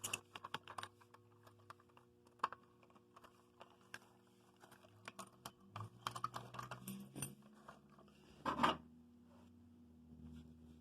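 Irregular small clicks and taps, like buttons being pressed on a fire alarm control panel's keypad while it is programmed, over a faint steady hum. A louder scrape comes about eight and a half seconds in.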